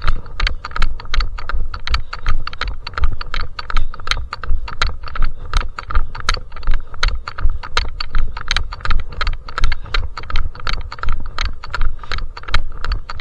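Running footsteps in a steady rhythm of about three strides a second, each a sharp slap with a low thud beneath it.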